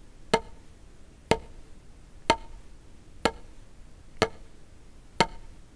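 Wooden drumsticks striking a rubber drum practice pad with full strokes: six single, evenly spaced hits about one a second, each with a short ring.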